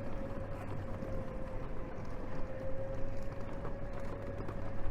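Steady street background noise of a town centre, with a constant faint whine and a low hum.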